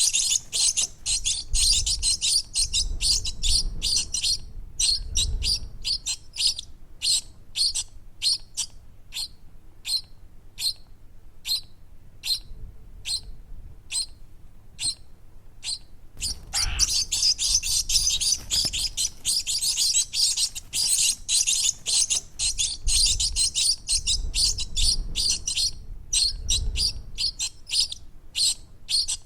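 Baby birds chirping: rapid, high-pitched chirps that come in dense runs of continuous chatter, alternating with slower stretches of single chirps about two or three a second.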